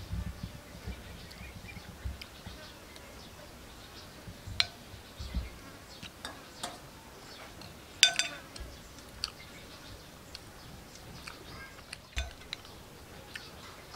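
A spoon clinking now and then against a ceramic plate and a stainless steel bowl while eating, several short sharp clinks with the loudest about 8 seconds in.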